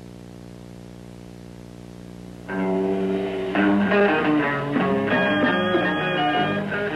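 A held chord rings on quietly, then about two and a half seconds in a 1960s garage rock band breaks in loud, with electric guitar and Hofner bass playing.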